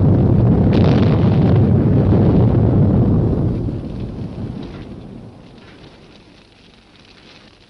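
A film sound effect of a smoke-bomb blast: a loud low rumble that holds for about three seconds and then slowly dies away.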